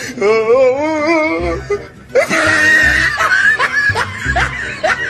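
Background music: a wavering vocal line, then a steady beat of low thumps about every second and a half with short rising notes between them.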